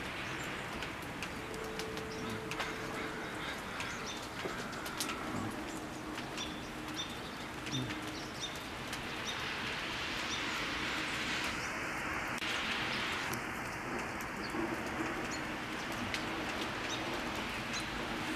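Outdoor ambience in falling snow: a steady hiss with scattered light ticks, and birds calling now and then, with a few short low coo-like notes.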